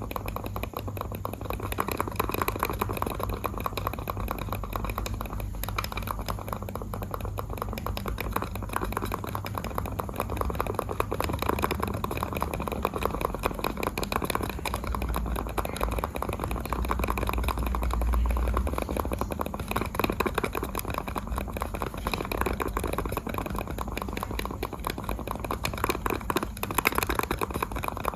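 Computer mouse buttons clicked rapidly and continuously, dense clicks over a low steady hum that swells about halfway through.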